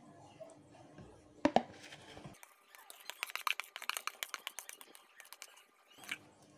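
Plastic knocking and clicking as batter is poured from a plastic mixing bowl into a plastic measuring jug. There are two sharp knocks about a second and a half in, then a quick run of light clicks for about three seconds, and one more click near the end.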